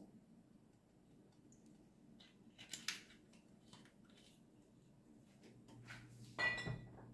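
Quiet kitchen handling sounds from a glass bottle of cooking oil being poured over a wok and taken away: a small clink about three seconds in, then a louder clink with a short ringing tone near the end, over a faint low hum.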